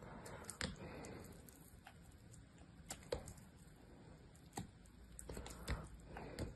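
Dry soap being cut with a small blade, brittle pieces cracking and snapping off in several sharp, crunchy cracks with soft scraping and crumbling between them.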